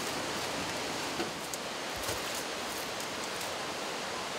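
Steady outdoor ambience: an even hiss with a few faint, brief high ticks.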